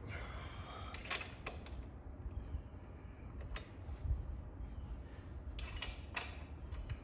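Metal tools and motorcycle parts being handled during a wheel change: a few sharp metallic clicks and short scrapes with pauses between them.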